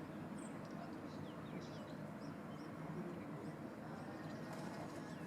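Small birds chirping faintly in the background: many brief, high chirps scattered over a steady low background noise.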